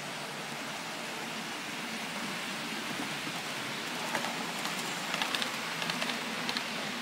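HAG model trains running on a model railway layout: a steady rolling hiss, with a run of quick clicks between about four and six and a half seconds in as wheels cross rail joints and points.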